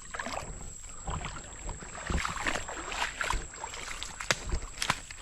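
Water splashing as a hooked rock bass thrashes at the surface while it is brought in, with a couple of sharp clicks near the end.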